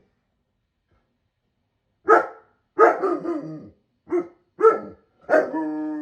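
A sable German Shepherd barks about five times, starting about two seconds in. The last bark breaks into a long, drawn-out howl near the end. This is the bark-howling of an unhappy dog pining for its absent owner.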